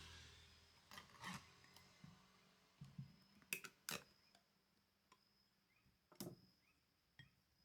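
Near silence broken by a few faint, scattered clicks and knocks of kitchen utensils and dishes being handled.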